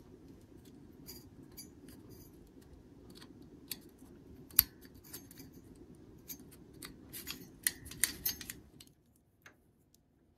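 Sharp plastic clicks and handling noise from a CPU cooler's push-pin mounting latches as their plungers are pulled back by hand, with one loud click about halfway and a quick flurry of clicks near the end, over a low steady rumble that stops shortly before the end.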